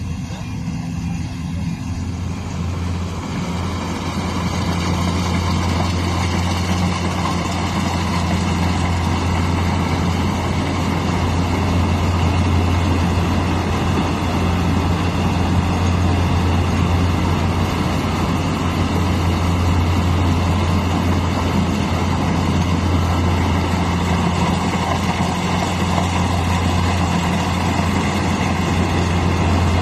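Engine of rice harvesting machinery running steadily, with a heavy low hum under a broad mechanical noise that grows louder over the first few seconds and then holds.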